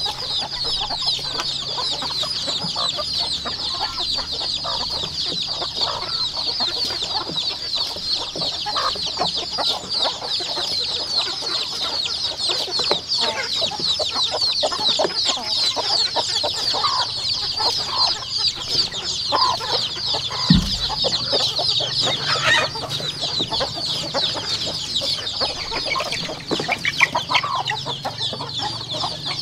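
A crowd of chicks peeping without pause, a dense chorus of short, high cheeps. One low thump comes about two-thirds of the way through.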